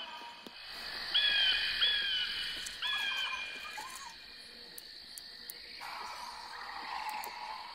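Owl hoots, several short calls in the first three seconds, over a steady high drone like crickets: a spooky night-ambience sound effect.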